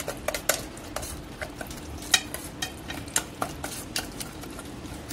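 Steel spoon scraping and clinking against a perforated stainless steel strainer as cooked tamarind and date pulp is pressed through it to strain out the seeds. The clicks and scrapes come irregularly, several a second.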